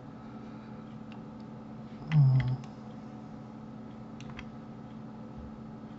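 A few scattered computer mouse and keyboard clicks over a faint steady hum. About two seconds in comes a short, half-second vocal sound from a person.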